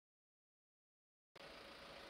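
Near silence for over a second, then faint, steady container-port ambience with a thin steady hum fades in about a second and a half in.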